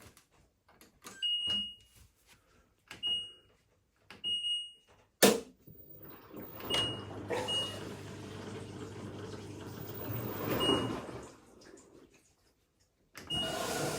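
LG washing machine control panel beeping as its buttons are pressed: single short high beeps every second or few. About five seconds in comes a sharp click, the loudest sound, followed by about five seconds of steady rushing noise with a low hum from the machine that dies away near the end.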